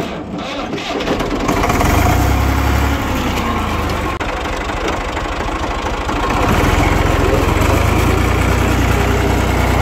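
Tractor engine running. It picks up over the first two seconds, changes pitch between about 2 and 5 seconds, and gets louder again about six and a half seconds in.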